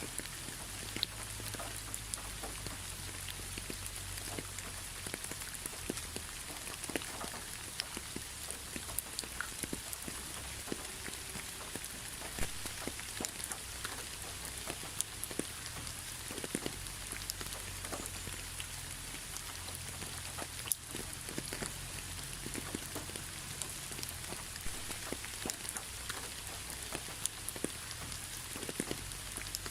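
Steady rain falling, an even hiss with many sharp, scattered drop ticks.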